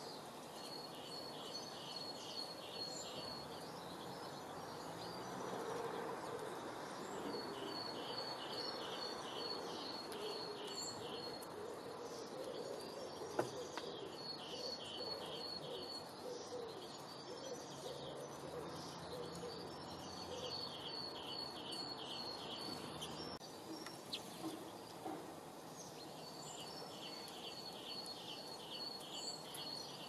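A small songbird repeats a rapid trill of evenly spaced high notes, each phrase lasting a few seconds and coming back every several seconds, over a steady outdoor background hiss. A single sharp click comes about thirteen seconds in.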